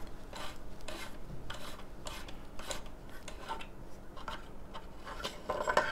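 Plastic butt cap on a CO2 air rifle's stock being twisted and pulled out to open the CO2 compartment: faint rubbing and scraping with small clicks.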